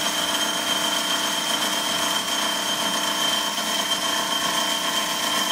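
JMT HBA330 horizontal metal-cutting band saw running as its blade cuts through square steel tubing: a steady machine sound with a high, even whine.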